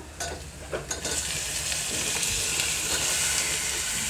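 Diced potatoes frying in hot oil with onions and chilli in an aluminium pot. A few light knocks are followed, about a second in, by a steady sizzle.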